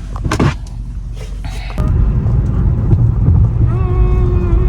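A few clicks and knocks, then about two seconds in a loud low rumble of a car driving starts abruptly. A few steady held tones come in near the end.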